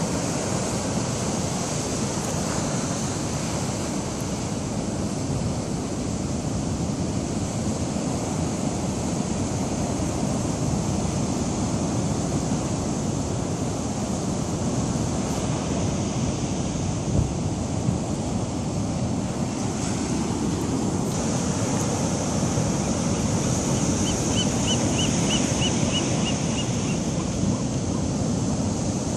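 Heavy Pacific storm surf breaking over a rocky sand beach: a continuous, steady wash of waves and foam.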